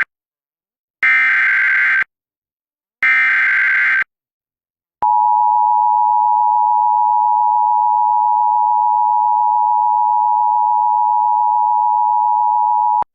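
Emergency Alert System alert opening: two one-second bursts of the SAME header's digital data screech, a second apart, then after a one-second gap the EAS attention signal, a steady two-tone beep held for about eight seconds and cut off abruptly. The header carries the coded alert and the attention tone announces the spoken message that follows.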